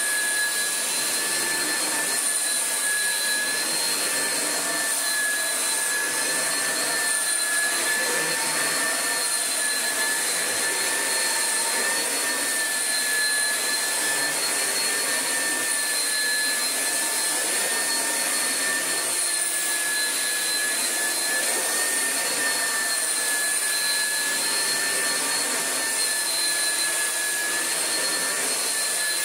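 Oreck XL upright vacuum cleaner running loud and steady, a high-pitched whine over a rush of air, its pitch wavering slightly. It runs smoothly after restoration.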